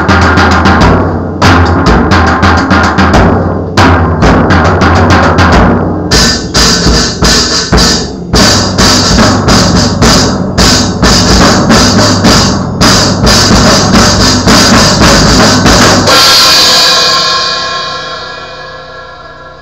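Drum kit played fast and loud, with dense snare, bass drum and cymbal hits. About 16 seconds in, a final cymbal crash rings out and fades away.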